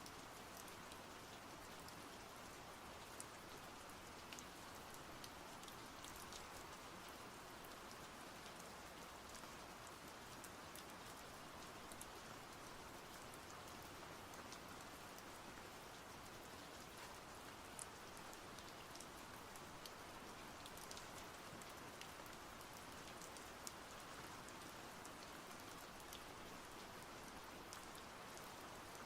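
Soft, steady rain: an even hiss with scattered light drop ticks.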